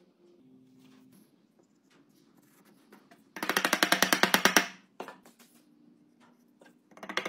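Mallet rapidly tapping wooden joinery parts together, a quick run of knocks about ten a second for over a second, then a few single knocks, and fast tapping again near the end.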